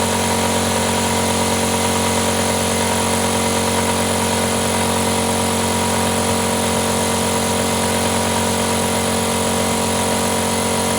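Compressor running steadily: a constant mechanical hum with several fixed tones over a broad, even hiss.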